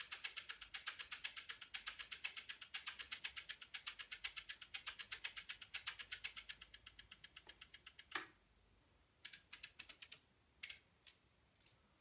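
Relays in a home-built relay computer clicking about eight times a second, one click per sequencer stage, as it runs a program from memory on a 4 Hz clock. The train stops about eight seconds in with one louder click, and a few scattered single clicks follow.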